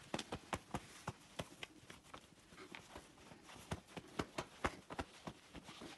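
A damp hand towel being patted and dabbed briskly against bare skin on the chest and neck: rapid, irregular soft slaps, several a second.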